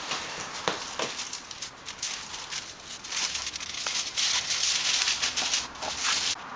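A few sharp cracks of corrugated cardboard being folded, then aluminium foil crinkling and rustling as it is cut with scissors and handled, loudest and most continuous in the last few seconds.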